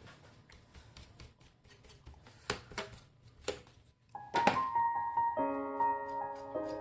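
Scattered light clicks and taps, then, about four seconds in, background music comes in with sustained keyboard notes.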